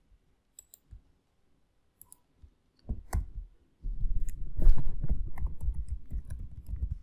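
Computer keyboard clicking: a few scattered key or mouse clicks, then from about four seconds in a rapid run of keystrokes with dull low thumps.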